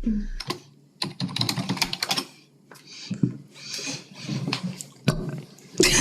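Typing on a computer keyboard: a quick run of key clicks starting about a second in, then a few scattered clicks.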